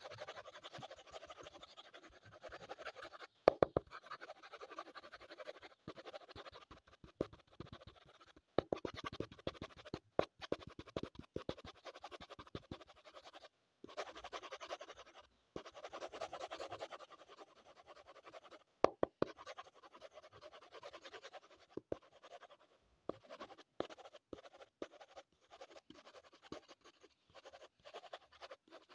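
Black wooden coloured pencil scratching on paper in quick shading strokes, in spells of a second or two with short pauses. Sharp little clicks are scattered through it, the loudest about three and a half seconds in.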